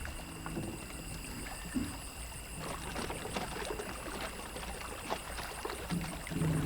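Water sloshing and trickling, with scattered small knocks.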